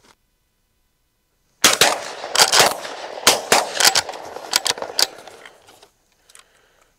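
Shotguns firing at doves in a rapid run of about a dozen sharp reports over three or four seconds, starting about a second and a half in, with echo fading after the last shot.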